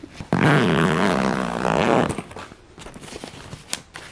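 Suitcase zipper pulled shut in one stroke of under two seconds, a dense zipping buzz, followed by soft fabric rustling and a few light clicks.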